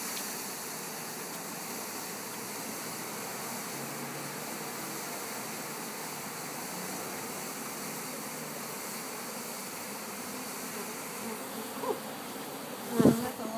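Honeybees buzzing steadily as a package of bees is shaken out into a Warre hive box. There is a sharp thump near the end.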